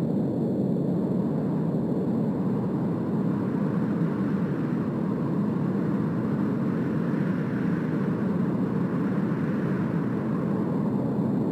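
Imagined 'sound of exoplanet Kepler-37b': a steady, low rushing noise without any tune or rhythm. A higher hiss swells from about a third of the way in and fades again near the end.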